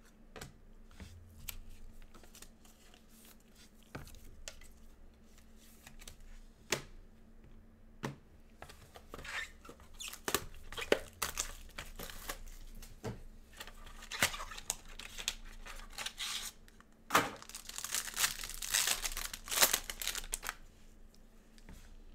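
Crinkling and tearing of a plastic trading-card pack wrapper in gloved hands, with scattered light clicks of cards being handled. The crinkling comes in bursts through the second half, heaviest a few seconds before the end.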